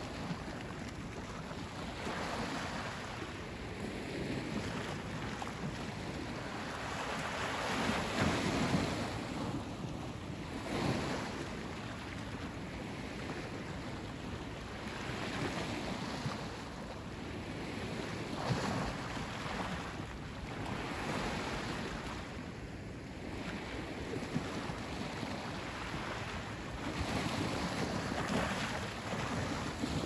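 Sea waves washing onto the beach, a steady wash of surf that swells and falls back every few seconds.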